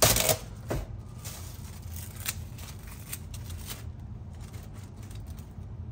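Press-and-seal plastic wrap crinkling and rustling as it is pulled over a dish and pressed down around it. A short, louder crackle comes right at the start, then faint scattered rustles.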